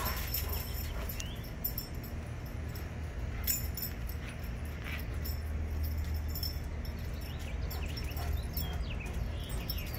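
Dogs moving about on a concrete patio, with faint jingling of collar tags and a few short bird chirps over a steady low rumble.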